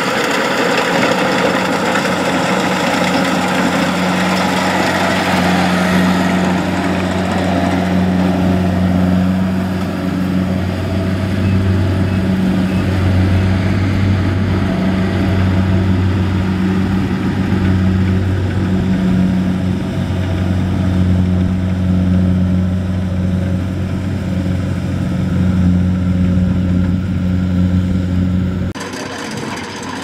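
Kubota DC70 combine harvester's diesel engine running steadily with a low hum while the machine harvests rice. About a second and a half before the end the sound drops to a quieter, thinner drone.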